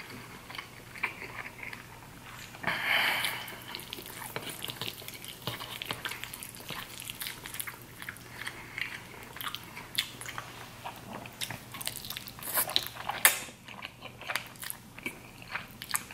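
Mouth sounds of a person eating creamy shrimp fettuccine Alfredo: chewing and biting, with many short clicks throughout and a louder noisy stretch about three seconds in.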